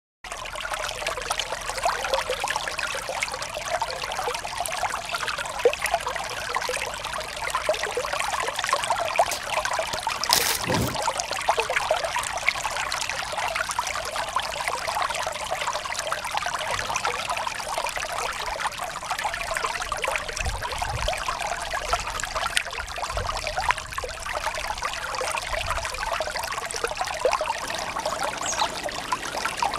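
Shallow stream babbling and splashing over rocks, a steady, even rush of water. A single brief knock about ten seconds in.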